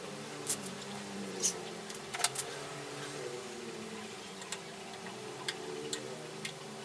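Light, sharp clicks and taps at irregular spacing, about one a second, from an old sewing machine being handled or worked, over a steady low hum.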